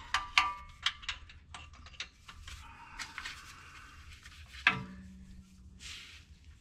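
Hand tools clicking and tapping on a starter motor's mounting bolts while the bolts are run in. The clicks come quickly and irregularly at first, then thin out, with one louder knock a little past the middle.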